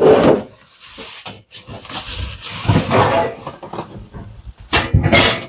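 Plastic wrapping and cardboard packaging rustling and scraping in irregular bursts as a plastic-wrapped cotton candy machine is pulled out of its shipping box, with a sharper burst near the end.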